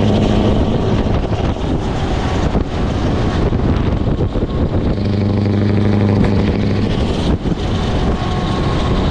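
Scania R650's V8 diesel engine driving along at road speed: a deep engine drone, loudest near the start and again about halfway through, over tyre and wind noise.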